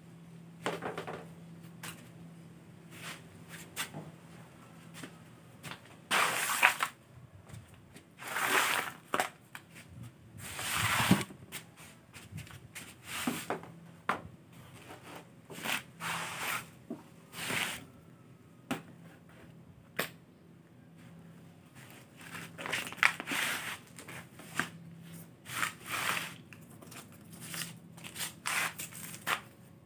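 Irregular bursts of scraping and crackling handling noise, each about a second long with short gaps between, over a faint steady hum.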